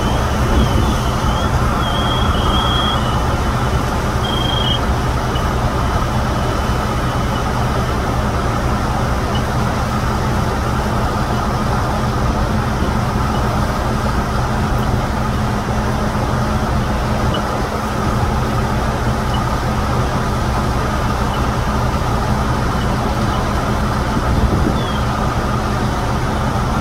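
Fire engines' diesel engines running steadily with a constant low rumble, driving the pumps that feed the charged hose lines.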